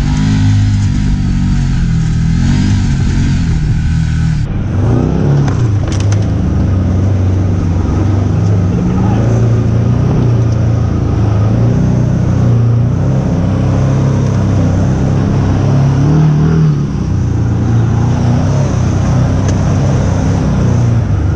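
Side-by-side UTV engine heard from on board, revving up and down as it drives a rough dirt trail. The sound changes abruptly about four and a half seconds in, where the recording cuts to another stretch of trail.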